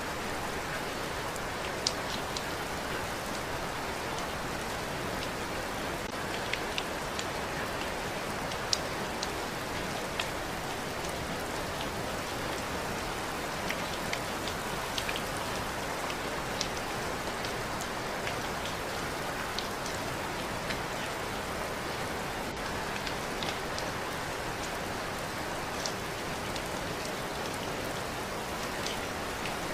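Steady rain falling on a surface, with individual drops landing as sharp ticks every so often over the continuous hiss.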